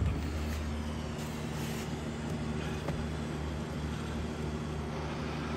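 A steady low mechanical hum, with a few faint taps and rustles over it in the first few seconds.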